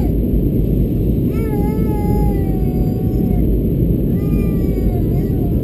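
Steady roar of an Airbus A320-214 heard from inside the cabin. Over it come two drawn-out, wavering high-pitched sounds, each a second or two long and sliding slowly down in pitch: one about a second in, another about four seconds in.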